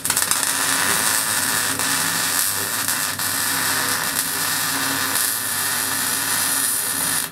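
Electric arc welding on a steel beam: a loud, steady hiss of the welding arc that starts abruptly and cuts off sharply when the arc is broken near the end.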